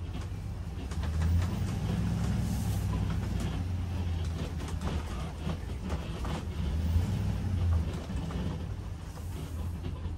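Motorhome engine, mounted under the cab floor, running while driving, heard from inside the cab as a steady low drone with road noise. It swells twice, about a second in and again around seven seconds, then eases near the end. Scattered creaks and clicks come from the coach body.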